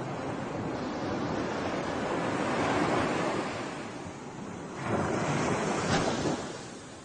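Sea waves breaking and washing on the shore, two surges about three seconds apart, with wind buffeting the microphone.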